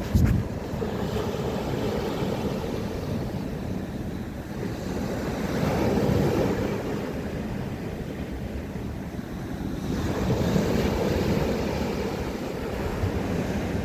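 Black Sea surf washing against the shore, the wash swelling twice, with wind rumbling on the microphone.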